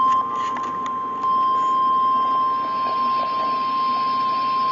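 NOAA Weather Radio's 1050 Hz warning alarm tone: one steady high-pitched tone over a hiss of background noise. It signals that a warning broadcast, here a tornado warning, is about to follow.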